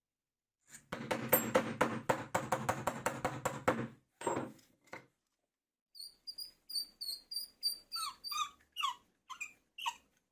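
Rapid clattering and clicking of small metal parts, then a string of short, high squeaks about three a second, from a nut, washer and threaded rod being worked through a plywood wheel's bearing.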